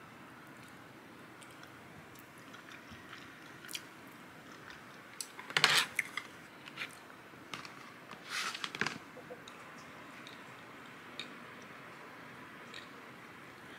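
Eating sounds at a meal table: wooden chopsticks and a wooden spoon clicking and scraping against a plastic rice container and dishes, with quiet chewing. Two louder clatters stand out, one about halfway through and another some three seconds later.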